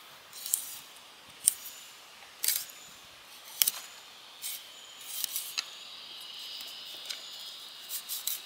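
Fillet knife cutting through a plucked chicken's knee joint, ligament and cartilage: a series of short, sharp, soft clicks and snicks about once a second.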